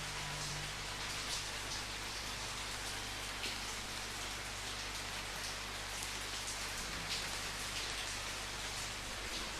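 Steady rain falling, with a constant hiss and scattered louder drops striking a surface.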